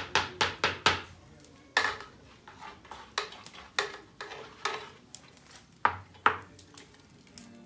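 Metal utensil knocking and scraping inside a metal cooking pot while food is served or stirred. A quick run of clanks comes first, then scattered clinks about a second apart.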